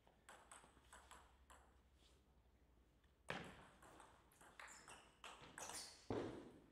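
Faint clicks of a table tennis ball, a few quick bounces before the serve, then a rally of the celluloid ball striking rubber bats and the table. A sharp loud hit about three seconds in and a heavier thump near the end stand out.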